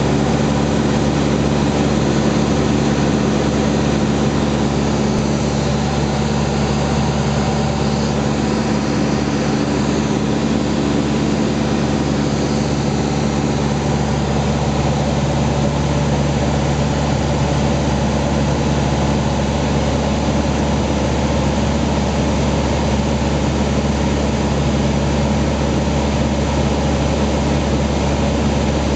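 Single-engine light propeller aircraft heard from inside the cabin: the engine and propeller drone steadily in cruise flight, with a loud rush of air behind it.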